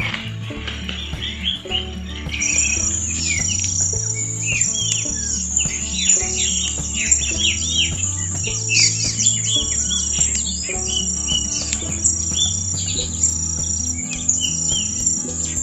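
Many small birds chirping and twittering, with an insect's high, evenly repeating trill that comes in a couple of seconds in.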